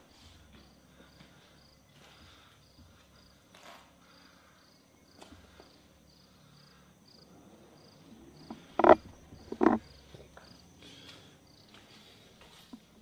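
An insect chirping steadily in a high, even rhythm, about three chirps a second. Two loud knocks come about a second apart, a few seconds before the end.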